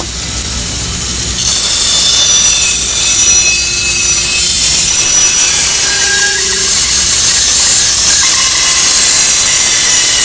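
Bandsaw cutting through a thick wooden decoy-head block. The cut bites in about a second and a half in and then holds as a loud, steady, high-pitched sawing noise over the low hum of the running saw.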